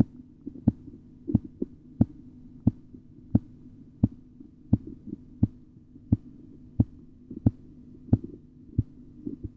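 Korotkoff sounds through a stethoscope over the arm's artery during auscultatory blood pressure measurement: a sharp tap with each pulse, about one and a half a second, over a steady low hum.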